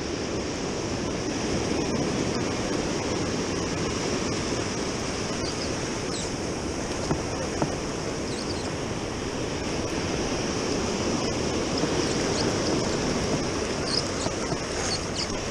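Ocean surf breaking and washing up over the wet sand at the shoreline: a steady rushing of water.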